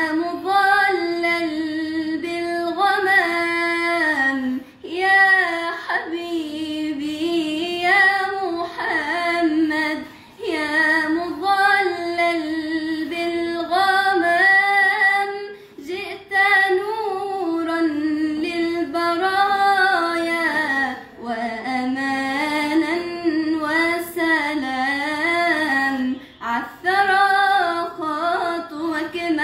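A teenage girl's solo voice singing an Islamic ibtihal, a devotional chant praising the Prophet Muhammad, without accompaniment. She sings long, ornamented phrases with a wavering pitch and pauses briefly between them every few seconds.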